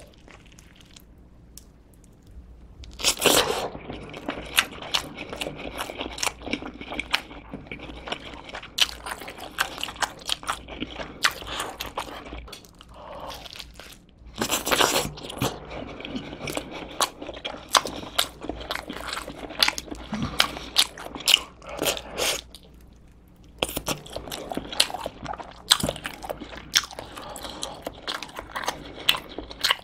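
Close-miked eating sounds: bites into a folded slice of pepperoni cheese pizza with a crisp crust, followed by crunchy, wet chewing. There is a loud bite about three seconds in and another around the middle, with short pauses between rounds of chewing.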